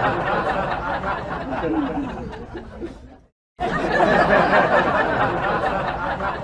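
A dense babble of people's voices with laughter, cut off abruptly about three seconds in and starting again a moment later.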